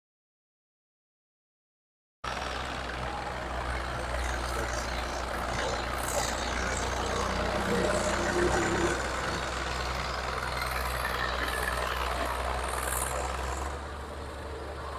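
Dead silence for about two seconds, then a large machine's engine running steadily, with a deep hum.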